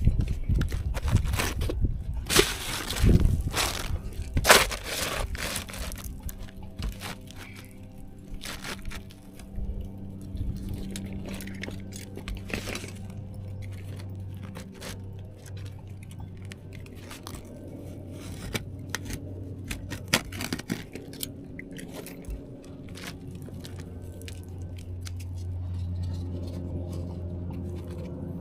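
Asphalt shingles being handled and stepped on: irregular crunching, crackling and scraping, loudest in the first five seconds and thinning to scattered clicks after, over a steady low hum.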